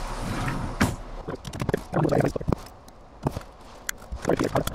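Scattered sharp clicks and knocks of handling as parts of a disassembled FN SCAR 17S rifle are picked up and turned over.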